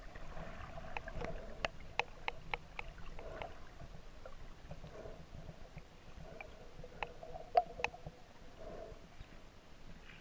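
Water moving around an underwater camera housing: a low rumble with a muffled, patchy middle band. Sharp clicks and knocks come through it, several in the first three seconds and a louder pair close together near eight seconds.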